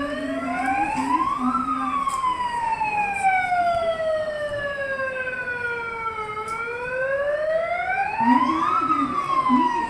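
A siren wailing slowly. Its pitch rises for about a second and a half, falls for about five seconds, rises again, and starts to fall near the end.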